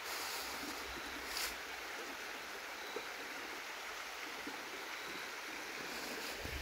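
A stream flowing steadily, an even rush of running water.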